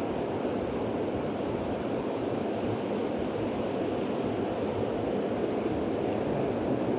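Steady rushing noise of water, even and unbroken.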